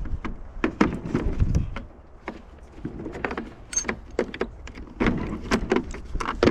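Irregular clicks, clanks and knocks of hand tools and loose parts against metal while an air compressor is being unbolted.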